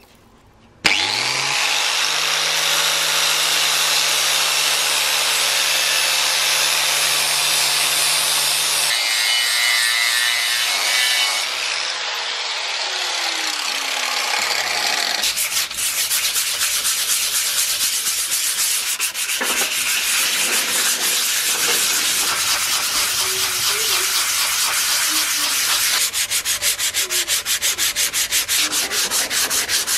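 Angle grinder with an abrasive disc starting up and grinding the cast-iron sole of an antique charcoal iron, its pitch dropping under load, then spinning down around halfway through. Hand sanding with sandpaper follows, rubbing over the iron sole in fast, regular strokes near the end.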